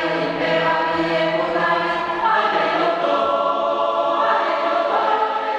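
Amateur choir singing held chords, moving to new chords about two seconds in and again about four seconds in.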